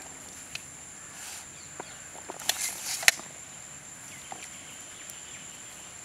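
Outdoor ambience with a steady high-pitched insect drone, broken by a few light clicks and taps. The sharpest tap comes about three seconds in.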